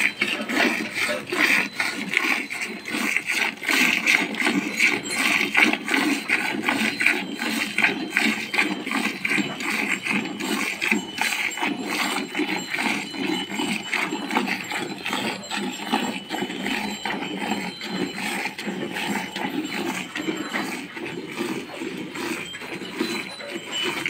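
Hand milking: two hands alternately squirting streams of milk from a cow's teats into a metal pail of frothy milk, in a fast, steady rhythm of squirts.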